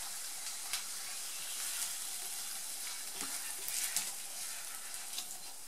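Hot fried blood sausage and its fat sizzling as they are tipped from a frying pan into a pot of simmering split peas, a steady hiss with a few light clicks and scrapes of the pan rim and spatula, busiest about four seconds in.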